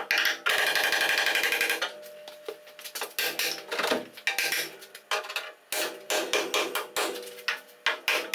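Hammer rapidly striking the steel body structure of a car front end held under tension on a frame-straightening pull, tapping the metal to relieve it so the pull takes. The blows come in quick runs with short pauses between them.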